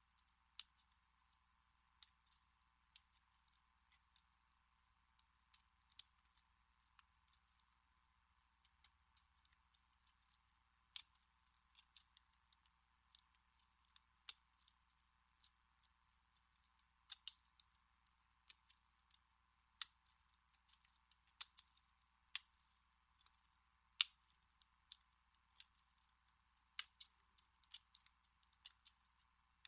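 Faint, irregular clicks and ticks of a lock pick working the pin stack of a vintage American Series 200 stainless-steel padlock, a few louder snaps among them.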